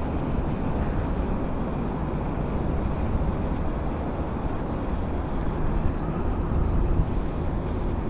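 Steady wind noise on the microphone with a low rumble underneath.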